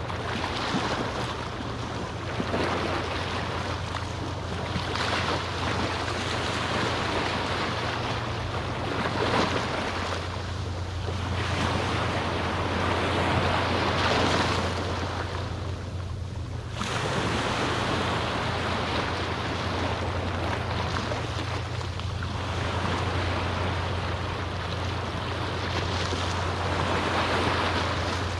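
Gentle Caribbean sea waves washing onto the beach, swelling and ebbing every few seconds, over a steady low rumble.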